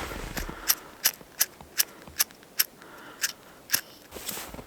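Cricket disposable lighter's flint wheel flicked over and over, about ten sharp clicks at two to three a second, the lighter failing to catch even though it still has gas, which the owner puts down to the gas coming out in drops.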